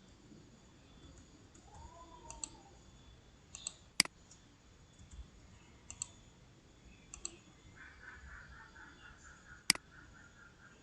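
Computer keyboard keys pressed one at a time, giving scattered clicks, some in quick pairs of press and release, with two sharper, louder clicks about four and ten seconds in.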